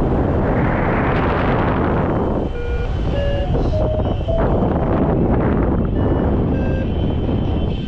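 Paragliding variometer beeping a climb tone: short beeps that step up in pitch about two and a half seconds in, then a few more beeps later, under a steady rush of wind over the microphone. Beeps rising in pitch signal the glider climbing faster in lift.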